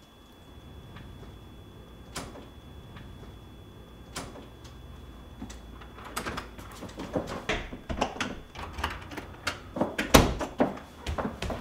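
A door being handled: a few sharp clicks, then a busier run of knocks and clicks from about six seconds in, the loudest knock just after ten seconds.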